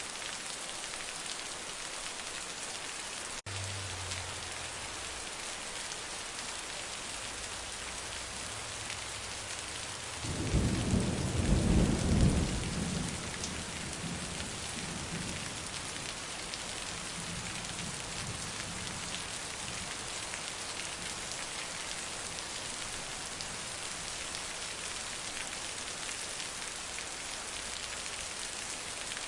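Heavy rain falling in a steady hiss, with a loud low rumble of thunder about ten seconds in that rolls on for a few seconds and slowly fades.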